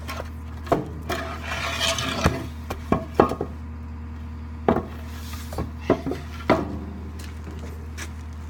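Scattered knocks and clatters with a brief scraping rub, as a wooden 2x4 and the power broom's metal frame are handled and shifted. A steady low hum runs underneath.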